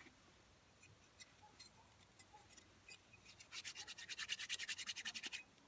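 Quick back-and-forth hand rubbing, about ten strokes a second, for about two seconds starting a little past halfway; before it only a few faint ticks.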